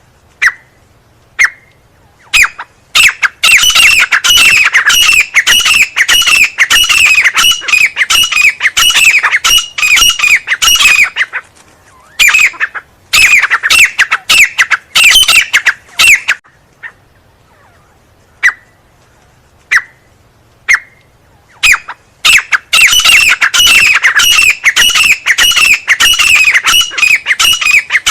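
Francolin (teetar) calling: a few single sharp notes, then long, fast runs of shrill, downward-sliding notes. There are three runs, with short pauses and lone calls between them.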